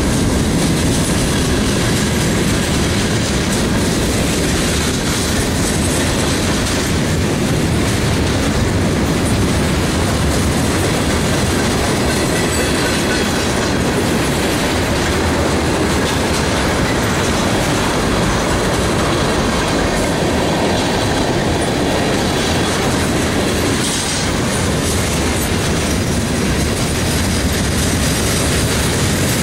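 Freight train cars rolling past, a steady loud rumble of steel wheels on rail with clickety-clack over the rail joints.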